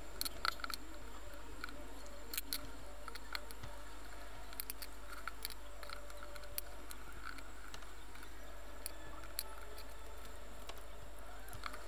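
Faint, scattered clicks and small scrapes of a precision screwdriver turning tiny screws out of a Canon PowerShot SX100 IS compact camera's plastic case, as the camera is handled and turned over.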